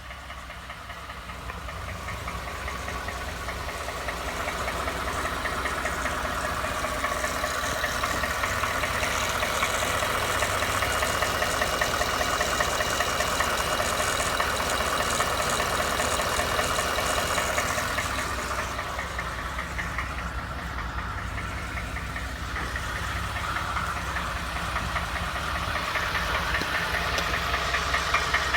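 Ford F-150 engine running with a fast, steady knock, which the owner noticed after buying the truck used. It grows louder over the first few seconds, eases off about two-thirds of the way through, then rises again near the end.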